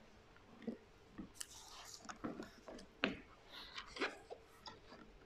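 Faint scattered rustles and light knocks, irregular and short, in a quiet pause between speech.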